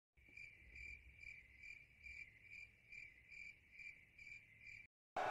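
Cricket chirping steadily, a little over two chirps a second: the stock 'crickets' sound effect of an awkward, bored silence. It starts just after a moment of dead silence and cuts off abruptly just before the end.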